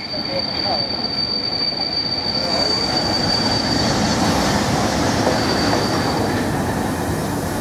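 Pullman coaches rolling past along the platform with a steady rumble of wheels on rail. Over it rings one thin, high, steady wheel squeal, which fades about four seconds in, comes back briefly and then stops.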